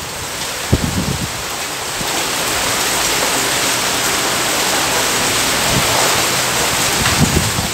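Torrential rain pouring onto a paved street and parked vehicles: a dense, steady hiss that grows somewhat louder about two seconds in.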